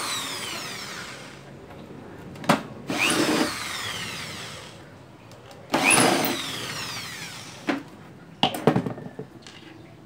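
Corded electric drill backing screws out of a TIG 200 welder's sheet-metal cover in short runs: the motor whine climbs as the trigger is pulled and slides down as it coasts to a stop. One run is already winding down at the start and two more follow. A few sharp clicks and knocks come near the end as the drill is handled and set down.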